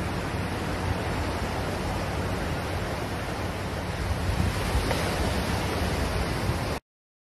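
Surf washing in along the beach, with wind rumbling on the microphone; the sound cuts off abruptly to silence near the end.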